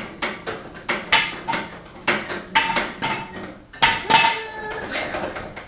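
Repeated metallic clanks and rattles, several a second, some ringing briefly: the homemade go-kart's steel frame and controls being worked by the driver sitting in it, with the engine off.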